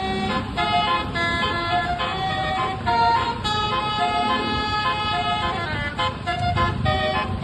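Tour bus's basuri (telolet) musical horn playing a tune: several horn notes sounding together and changing pitch in quick steps, over a low rumble.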